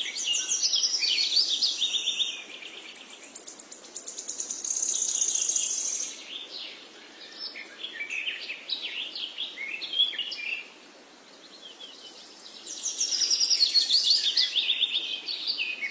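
Birds singing: quick runs of high chirps that step down in pitch, coming in several spells, over a faint steady hiss.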